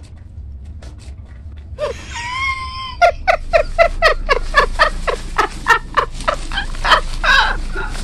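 A wavering high squawk, then a fast, even run of short chicken-like cackling calls, about four a second, each dropping in pitch.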